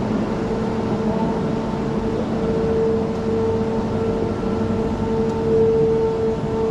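Ocean Express cable-hauled funicular train pulling out of its station: a steady rumble under a constant hum, swelling slightly near the end.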